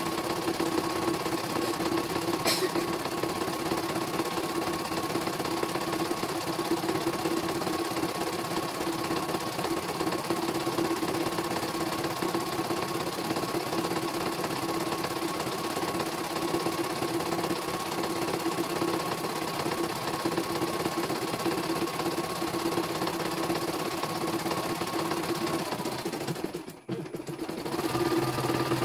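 CNY computerised home embroidery machine stitching a design, with a steady needle-and-motor hum as the hoop steps along. Near the end it goes quiet for about a second, then starts up again with a lower hum. The machine is running again after a cleaning and resetting.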